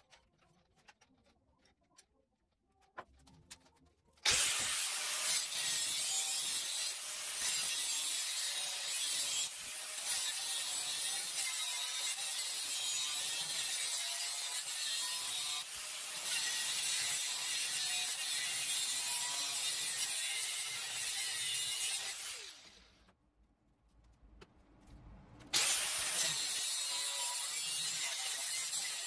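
Angle grinder with an abrasive cut-off wheel cutting through two bolted-together steel plates, a harsh steady hiss. The cutting starts about four seconds in, stops for a couple of seconds about two-thirds of the way through, then starts again.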